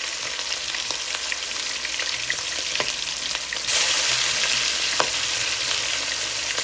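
Chicken drumsticks frying in hot oil: a steady sizzle that gets louder about four seconds in.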